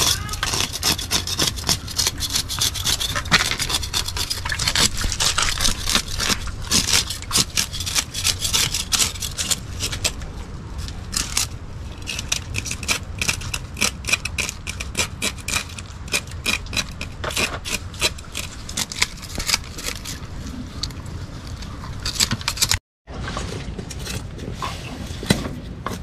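Kitchen knife scraping the scales off a whole fish on a wooden board: quick rasping strokes, several a second, denser in the first half, with a brief gap near the end.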